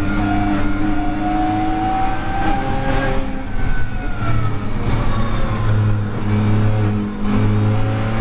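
BMW M2 Competition's twin-turbo straight-six at full throttle on track. Its pitch climbs, drops and falls away through the middle as the car slows, then climbs again near the end.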